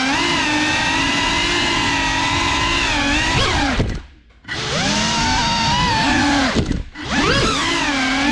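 GEPRC CineLog35 FPV cinewhoop's motors and propellers whining, the pitch rising and falling with throttle. The throttle is cut almost to silence about four seconds in, and chopped again briefly just before seven seconds, the whine climbing back each time.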